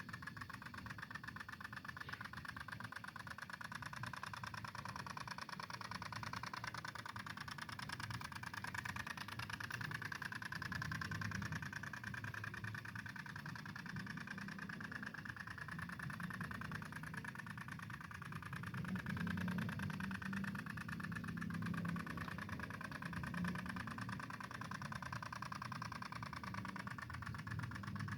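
Small two-stroke engine of a G1000 mini tiller running steadily under tilling work, a little louder about two-thirds of the way through.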